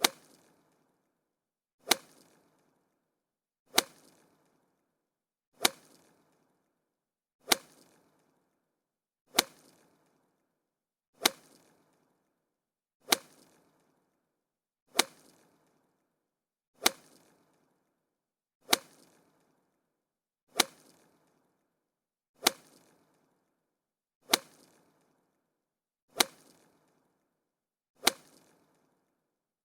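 Golf club striking a ball: a sharp, crisp crack with a short fading tail, repeated identically about every two seconds, sixteen hits in all.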